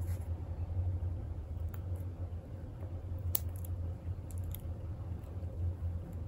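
A steady low hum under faint ticks and rustles of a metal crochet hook pulling yarn through stitches, with one sharper click about three and a half seconds in.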